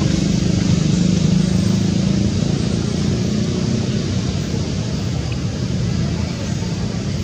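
A steady engine rumble, easing off slightly after the first couple of seconds.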